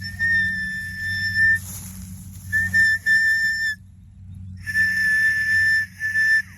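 A steady high-pitched whistling tone at a single unchanging pitch, sounding three times with short breaks between, over a continuous low engine-like hum.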